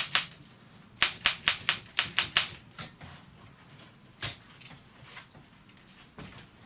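Olympia SM7 manual typewriter being typed on: one key strike at the start, a quick run of about eight strikes from about a second in, then a few single strikes spaced well apart.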